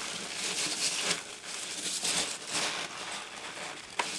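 Hands rummaging through loose foam packing peanuts and packing material in a cardboard shipping box, a rustling, crinkling sound in repeated surges, with a sharp click near the end.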